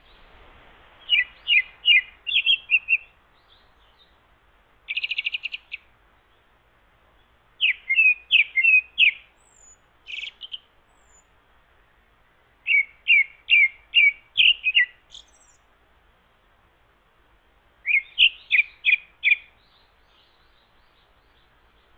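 Japanese thrush singing: five phrases of quick, clear whistled notes, each a second or two long and a few seconds apart. About five seconds in there is a short, rapid, buzzy run of notes.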